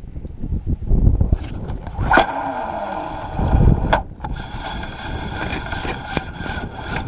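Shimano spinning reel being cranked to retrieve line, with scraping, clicking handling noise close to the microphone. A steady mechanical hum comes in about two seconds in and carries on to the end.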